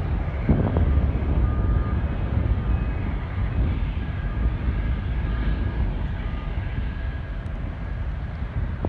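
Twin-engine jet airliner climbing away after takeoff: a steady engine roar, heavy in the low end, that slowly fades as the plane recedes.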